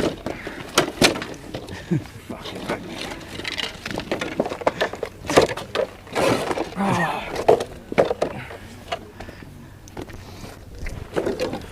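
Scattered sharp knocks and clatters, a dozen or more irregular hits, with indistinct voices now and then.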